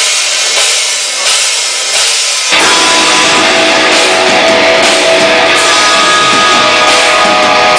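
Live heavy rock band starting a song: a thin opening without bass or drums for about two and a half seconds, then the full band comes in loud with drums and distorted electric guitars, notes held over the top.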